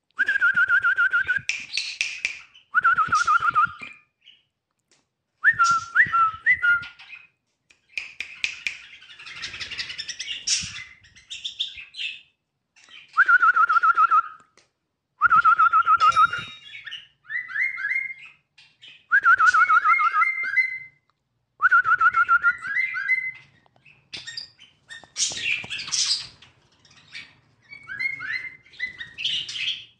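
White-eared bulbul singing: loud whistled phrases repeated every couple of seconds, mixed with harsher chattering notes.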